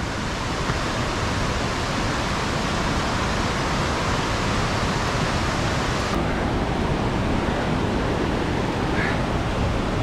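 Steady roar of the 244-metre Khandadhar waterfall: an even, unbroken rush of falling water.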